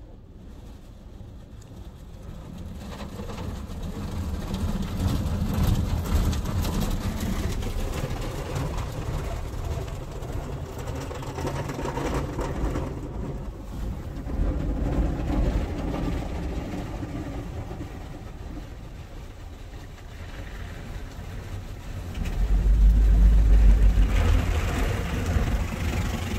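OPW PDQ automatic car wash heard from inside the car's cabin: water spraying over the body and windows above a low rumble of the wash machinery. The sound rises and falls, with a loud low surge about 22 seconds in.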